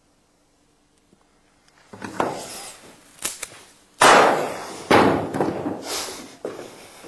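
A revolver fired once, a loud shot about four seconds in that rings on in the room: the chamber holding the live round, discharged away from the shooter into sandbags. Other sharp knocks and loud sudden sounds come a couple of seconds before it and in the seconds after.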